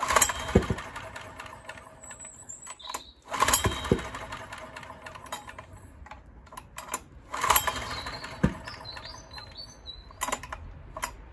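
Honda EX1000 generator engine pulled over three times on its recoil starter. Each pull gives a burst of fast clattering and popping that runs down and dies without the engine catching, which the owner takes for backfiring through the carburettor.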